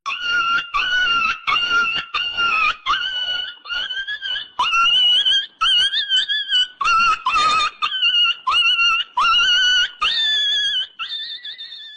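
An animal's high-pitched whining calls, repeated about fifteen times in quick succession, each opening with a short upward slide and the pitch creeping higher toward the end.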